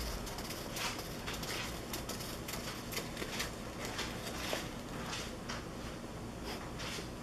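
A hedgehog scrabbling inside a cardboard toilet paper tube, the tube rustling and scraping against a rubber mat in a run of short, irregular scratches.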